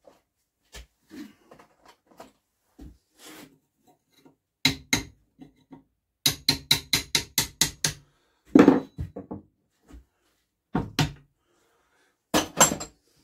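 Socket ratchet clicking in a quick, even run of about a dozen clicks as the oil filler cap on an engine is undone. Around it, separate knocks and clunks of metal tools handled and set down on a wooden workbench, the loudest a little after the ratchet stops.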